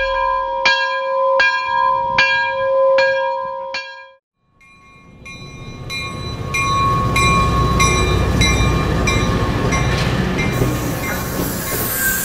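A steady ringing tone with sharp strikes about twice a second cuts off about four seconds in. Then a Sacramento light rail train passes close by: a low rumble builds, with regular clacks about two or three a second over it.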